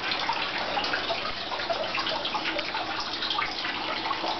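Hot spring water pouring from a spout into a wooden soaking tub, a steady splashing.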